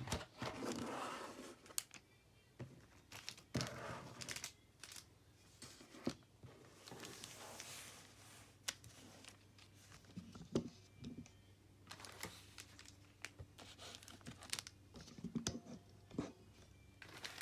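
Pokemon card pack wrappers crinkling and cards being handled, with faint rustles and scattered small taps and clicks.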